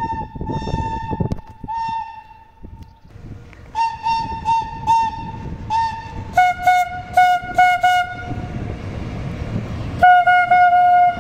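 Horn of a Trenitalia E.652 electric locomotive sounding a series of toots as it approaches and passes: first on a higher note, held and then in short bursts, then a run of quick toots on a lower note. The rumble of the passing locomotive comes between the blasts, and one longer low blast sounds near the end.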